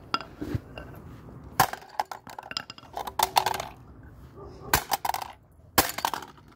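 Hard plastic pieces of a broken toy iron knocking and clattering on a concrete pavement: a string of sharp knocks, the loudest about one and a half, five and six seconds in.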